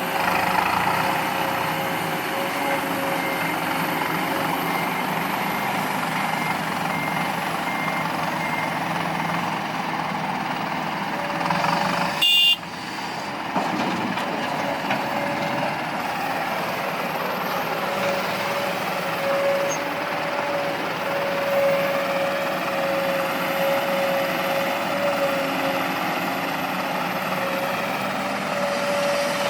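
Diesel engines of an excavator and a dump truck running steadily, with a reversing alarm beeping over the first ten seconds or so. A short sharp click and dip about twelve seconds in.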